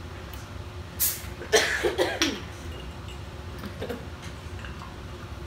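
A plastic soda bottle cap twisted open with a short sharp hiss of escaping gas. About half a second later comes louder fizzing as the soda foams up and overflows, mixed with a brief vocal outburst.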